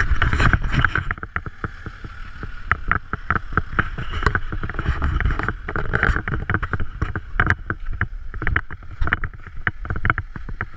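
Footsteps crunching through snow in an uneven run of a few steps a second, with wind buffeting the microphone.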